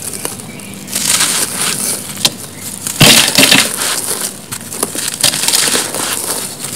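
Small dry, porous sandy cement blocks crumbled by hand: gritty crunching and crackling as pieces break off and grit falls, starting about a second in and loudest about three seconds in.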